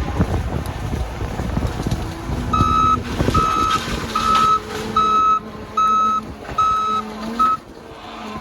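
Backup alarm of a 2022 John Deere 331G skid steer beeping seven times at an even pace, about one and a half beeps a second, over the machine's running engine. The beeps stop near the end.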